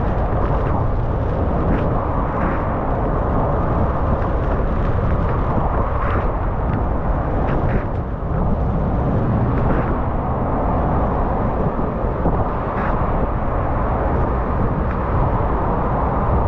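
Wind noise buffeting the camera's microphone on a moving sport bike, with the motorcycle engine running steadily underneath. A few short sharp ticks stand out from the steady noise.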